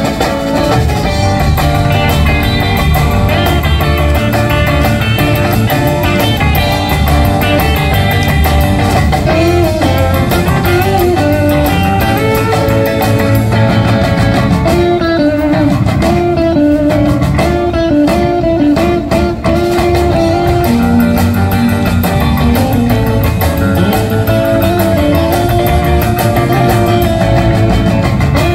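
Live band playing: electric guitars, electric bass and drum kit, with a lead guitar carrying the tune and no singing.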